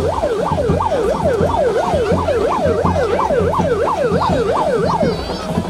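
Electronic siren in its fast yelp mode, its pitch sweeping up and down about two to three times a second, cutting off near the end. A low steady thumping runs underneath.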